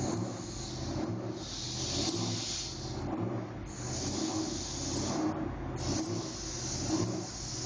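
A low, steady machine hum, likely an engine running, with a hiss that comes and goes in spells of one to two seconds.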